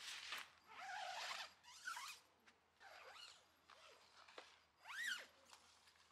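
Tent door zipper being pulled in several short strokes, each a quick sliding zip, with pauses between them.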